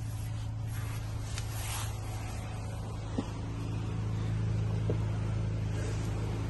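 Hyundai Santa Fe 2.5 T-GDi engine idling as a steady low hum, heard from the cabin with the door open, with two light clicks from the rear seat being handled.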